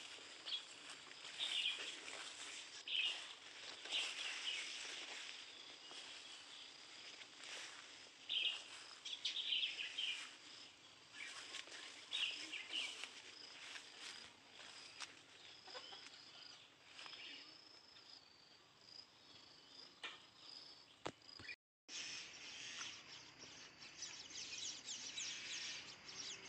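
Orchard ambience: a steady high insect trill with bird chirps now and then. The sound cuts out for a moment about 21 seconds in.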